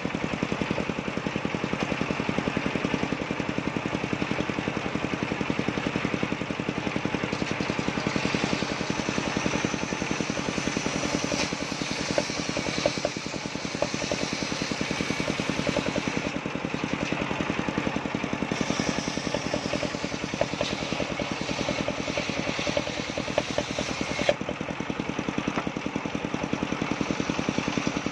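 Large engine-driven circular table saw ripping mahogany boards into planks: the engine runs steadily with a fast, even pulse while the blade cuts, with a few short knocks from the wood partway through.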